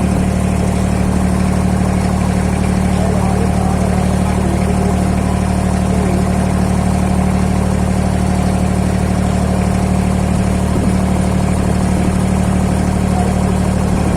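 Boat engine running steadily at constant speed, a low even drone with no change in pitch.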